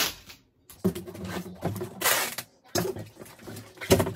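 Packing tape pulled off the roll in several long rips and pressed onto a cardboard box.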